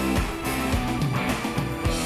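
A rock band playing live: electric guitar over bass and a steady drum beat.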